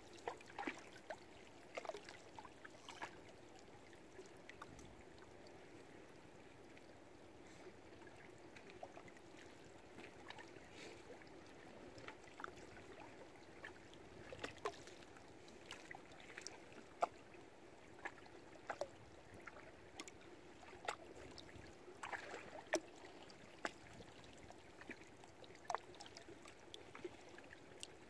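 Water lapping gently and steadily against moored boats, with scattered irregular little slaps and clicks.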